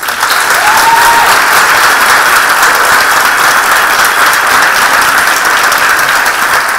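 Audience applauding steadily and loudly at the close of a talk, with one brief rising note from the crowd about a second in.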